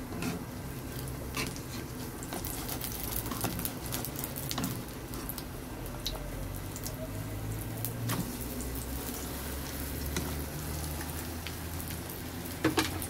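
Egg omelette with spring onion frying in hot oil in a wok, a steady sizzle with scattered crackles and pops. Two sharp clicks near the end.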